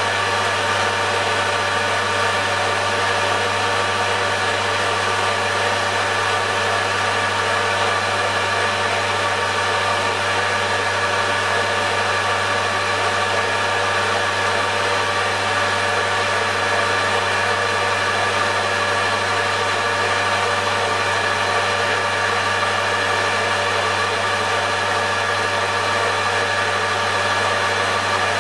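Metal lathe running steadily, its motor giving a constant hum with several steady tones, as a carbide tool takes a cut along steel bar stock to clean off the mill scale.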